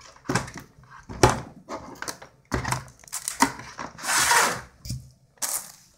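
Handling noise from a Black & Decker Mouse detail sander and its hard plastic carry case: irregular knocks and clatter as the sander is lifted out and set down on a wooden floor, with a scraping rustle a little past halfway and another near the end. The sander is not running.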